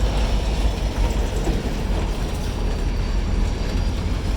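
Union Pacific freight locomotive pulling its train away, a steady rumble of the engine and rolling cars.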